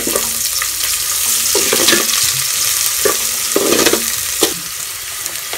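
Garlic and onion sizzling in hot oil in a pan, with a utensil stirring, giving several sharp knocks and short scrapes against the pan.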